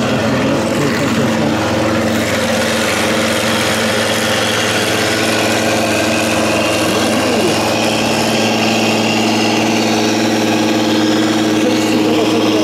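Massey Ferguson farm tractor's diesel engine running steadily at a constant pitch under load while pulling a weight sled over the dirt track.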